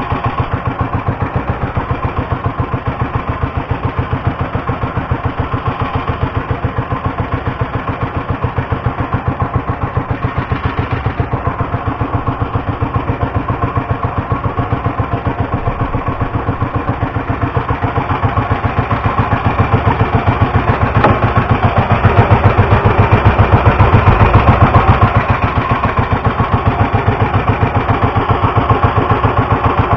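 A bangka's (Filipino outrigger fishing boat's) engine running with a steady, rapid pulsing beat. It gets louder for a few seconds about two-thirds of the way through, then settles back.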